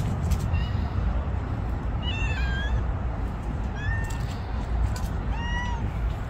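Stray cat meowing three times, short high calls that rise and fall, over a steady low rumble.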